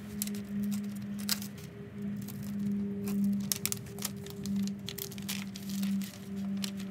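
Masking paper crinkling and tearing in short, scattered bursts as it is peeled off a freshly sprayed car grille. Background music with a steady, low held note plays underneath.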